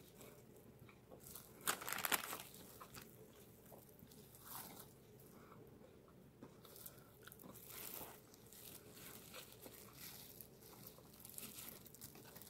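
Faint sounds of chewing and handling a pizza cheese bun, with scattered short crackles, the loudest about two seconds in.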